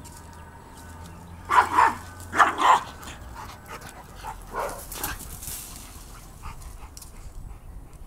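Dog barking during play: four sharp barks in two quick pairs a little over a second in, then a few quieter barks or yips around the middle.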